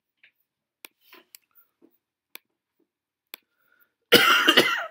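Several faint, scattered computer mouse clicks, then near the end a loud cough from a person.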